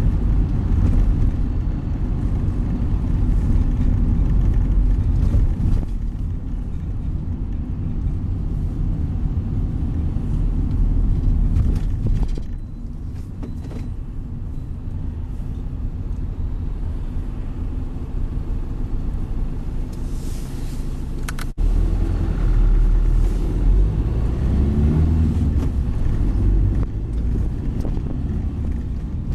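Steady low rumble of a bus's engine and tyres heard from on board while driving through traffic, easing for a stretch in the middle and picking up again after a very brief break about two-thirds of the way through.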